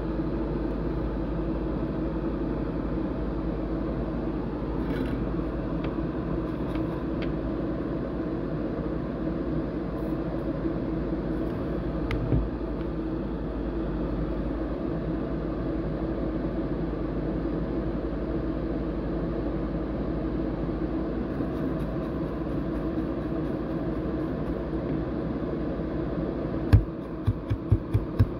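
Steady low electrical hum under an even, fan-like whir, with a few short low thumps near the end.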